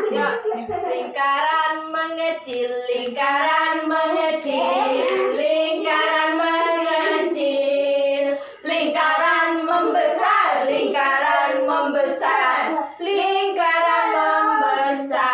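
A group of young children singing a song together with a woman's voice.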